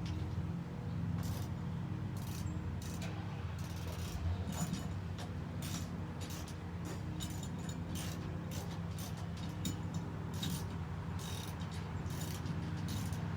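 Hand ratchet wrench clicking in uneven runs as bolts are tightened on a truck's step bar mounting brackets, over a steady low hum.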